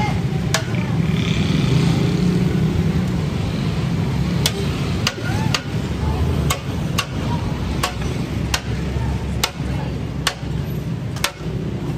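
Sharp metallic clinks every half second to second, denser after about four seconds, as a serving spoon strikes steel plates and the rim of a large pulao pot. Underneath are a steady low street hum and crowd chatter.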